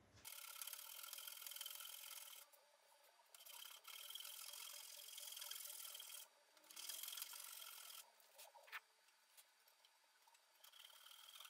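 Faint rubbing of a hand sliding across a wooden bench top with metal inlays, in four long strokes separated by short pauses.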